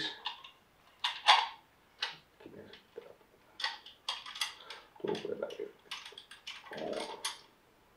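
Parts of a disassembled Sako S20 rifle being handled: scattered clicks and knocks of the chassis and stock pieces, with one louder knock about a second in.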